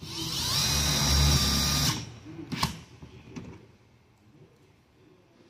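Cordless impact driver running for about two seconds, driving a self-tapping hex-head screw through a Z bracket into the fiberglass roof; its whine rises a little and then holds before it stops. A short sharp click follows about half a second later.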